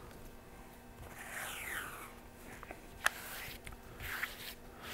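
Hands rubbing blue masking tape flat onto a plastic build plate: faint swishing of palms sliding over the tape, with one sharp tap about three seconds in.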